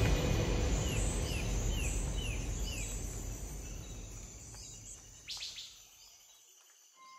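Background music fading out to near silence. As it fades, a low rumble dies away and a run of short, falling bird-like chirps sounds about two a second, with a single click about five seconds in.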